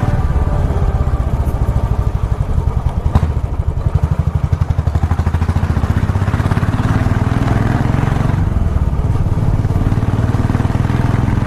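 Motorcycle engine running with a rapid, even pulsing exhaust note as the bike cruises along the road. A single sharp click about three seconds in.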